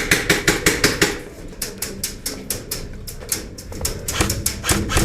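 A rapid, even string of sharp clicking shots at about seven a second, typical of an airsoft gun firing repeatedly, softer for a stretch in the middle.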